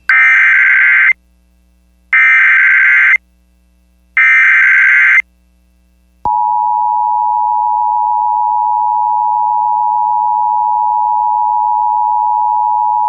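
Emergency Alert System SAME header: three shrill bursts of digital data tones, each about a second long and about two seconds apart, encoding a severe thunderstorm warning. About six seconds in, the steady two-tone EAS attention signal starts.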